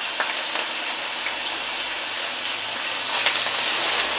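Wine-marinated rabbit pieces browning in hot olive oil in a skillet on medium-high heat: a steady sizzle, with a couple of faint ticks.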